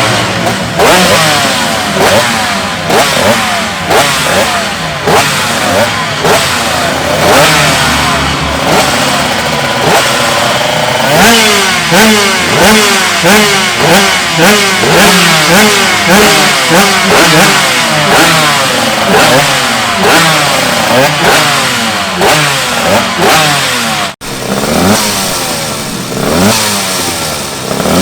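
Two-stroke racing motorcycle engine revved over and over in quick throttle blips, its pitch sweeping up and falling back each time. The sound drops out for an instant about 24 seconds in.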